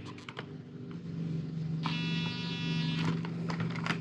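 RC truck's electronics powering up and binding to the 2.4 GHz remote: a few button clicks, then a steady low electronic hum from about a second in, with a buzzy beep-tone lasting about a second in the middle.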